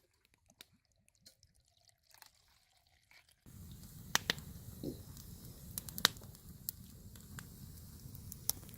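Wood campfire crackling, with sharp irregular pops over a steady low rumble. It starts suddenly about three seconds in, after a stretch of near silence with only faint clicks.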